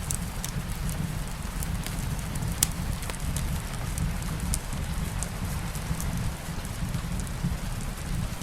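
Steady soft rain mixed with a wood fire in a fireplace: an even low rumble under scattered sharp crackles and pops, one louder pop about two and a half seconds in.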